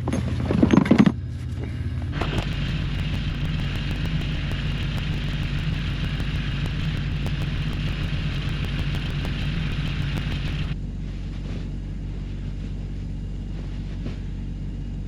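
Compact Kubota tractor's engine idling steadily while it warms up. From about two seconds in, a higher hissing noise rides over it and cuts off suddenly near eleven seconds; a couple of loud brief knocks come in the first second.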